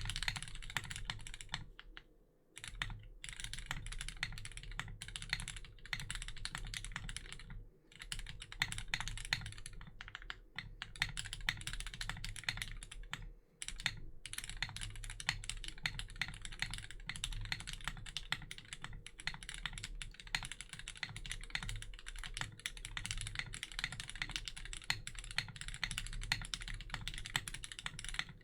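Fast, continuous typing on a Tiger80 Lite mechanical keyboard with lubed and filmed Hyperglide Cherry MX Black linear switches, the keys bottoming out in quick clacks. The stream breaks off for short pauses a few times.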